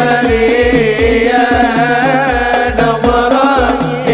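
A man singing a devotional sholawat in Arabic into a microphone, his voice sliding through long ornamented notes, over a hadroh hand-drum ensemble beating a steady rhythm with deep bass-drum thumps.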